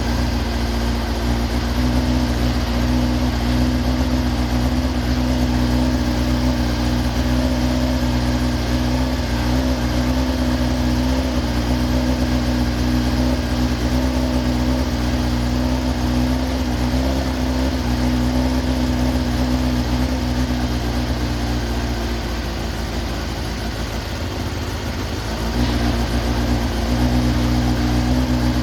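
Engine running steadily. A little over 20 seconds in its note falters and drops for about three seconds, then picks back up to the same steady speed.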